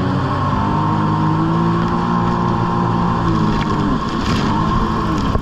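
Jet ski engine running at high revs. The pitch holds steady, dips twice (about three and a half seconds in and again at the end) and climbs straight back, with a brief rush of water spray as it dips the first time.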